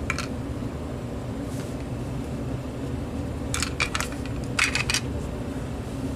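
Small hard plastic parts of an opened cordless phone handset clicking and rattling as they are handled: one click at the start, then two short clusters of clicks about three and a half and four and a half seconds in, over a steady low hum.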